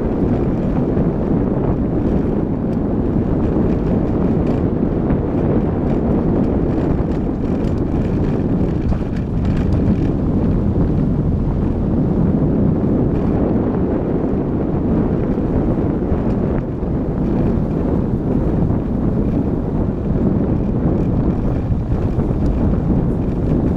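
Car driving on a gravel road, heard from a camera mounted outside on the bonnet: a steady low rumble of wind buffeting the microphone over tyre and engine noise.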